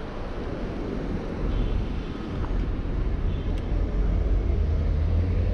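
Low rumble of city street traffic heard from a bicycle riding between cars, growing louder about a second and a half in.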